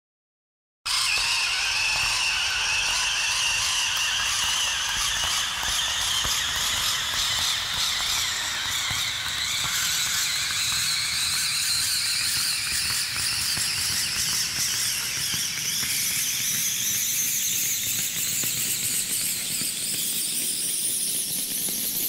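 Cinematic riser sound effect: a wash of noise with several high tones that climb slowly and steadily in pitch, starting abruptly about a second in and rising for about twenty seconds.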